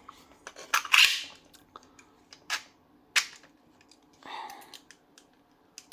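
Sharp clicks and knocks of 3D-printed plastic pistol parts as the magazine is worked against the wire-sprung magazine catch, which holds it in place. A loud cluster of clicks about a second in, then single clicks at about two and a half and three seconds, and a softer rattle past four seconds.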